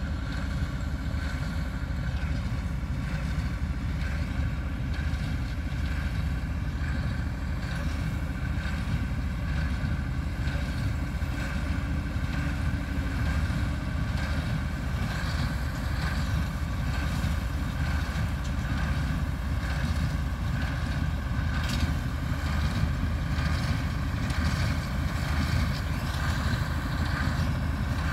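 Ford New Holland 7840 tractor's six-cylinder diesel running steadily under load as it pulls a New Holland Hayliner 370 small square baler picking up hay, with repeated faint knocks from the baler's works.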